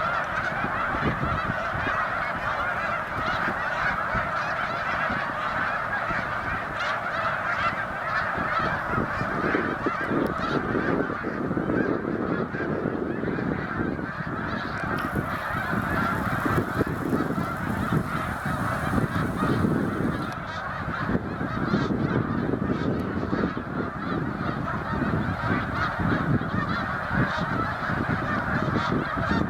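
A large flock of snow geese calling all at once: a dense, continuous chorus of overlapping honks and yelps.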